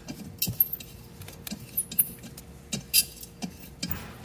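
Irregular metallic clinks and taps, a dozen or so sharp clicks, from a steel tool and loose bolt hardware knocking against a porcelain-coated exhaust manifold's flange.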